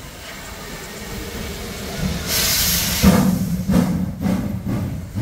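Steam locomotive pulling away from a standstill: a loud burst of steam hiss from the open cylinder drain cocks about two seconds in, then slow exhaust chuffs, about two or three a second.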